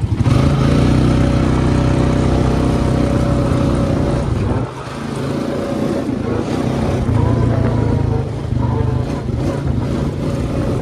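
ATV engine running steadily under throttle while riding a dirt trail. It eases off briefly about halfway through, then picks up again.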